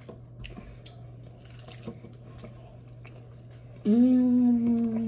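Faint chewing and mouth clicks of someone eating. About four seconds in, a person's voice holds one long, steady, slightly falling note for about a second and a half, with no words.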